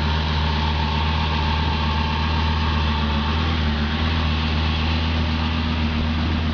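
2004 Lamborghini Gallardo's 5.0-litre V10 engine idling steadily.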